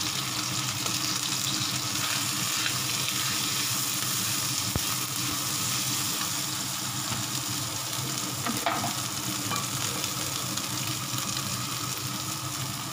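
Julienned carrots and meat sizzling in hot oil in a wok, stirred and turned with a metal spatula, with a couple of light clicks of the spatula against the pan.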